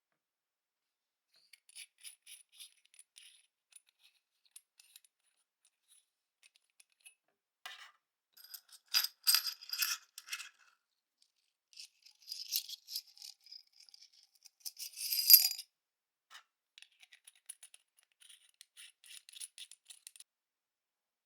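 Light clicks and rattles of small hard objects being handled, coming in bursts, with the loudest clusters about nine and fifteen seconds in.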